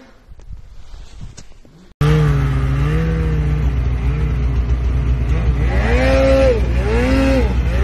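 Snowmobile engine revving up and down in repeated swells as the rider carves turns in deep snow, over a steady low wind rumble on the microphone. It starts suddenly about two seconds in, after a quieter stretch.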